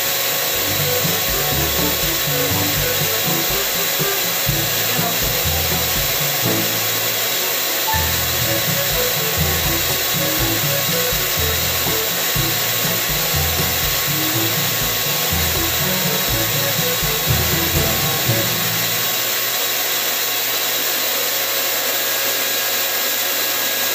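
Electric HVLP paint sprayer's turbine blower (Paint Zoom) running steadily, pushing air through its hose to the spray gun during a spray test. Background music plays over it and stops a few seconds before the end.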